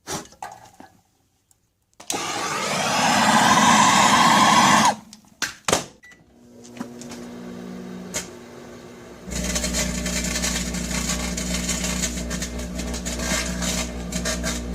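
A microwave oven running with a steady electrical hum that gets louder about two-thirds of the way in, with crackling clicks over it from the orange peel sparking inside. Before that there are a few clicks and a loud hiss lasting about three seconds.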